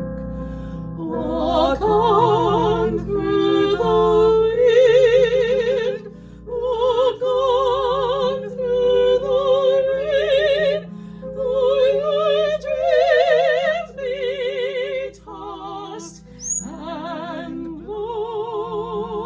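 Operatic-style singing without clear words: long held notes with a wide vibrato over a steady sustained accompaniment. A brief high rising squeak cuts in about three-quarters of the way through.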